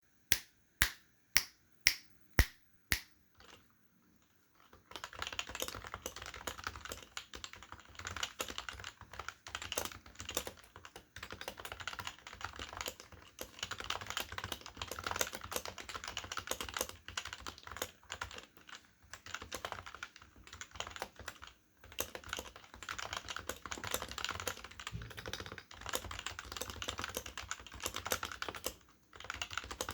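Stock HHKB Professional keyboard with Topre switches and PBT dye-sub keycaps being typed on quickly and continuously, with a couple of brief pauses. It opens with six sharp, louder clicks about half a second apart, then a short gap before the typing starts.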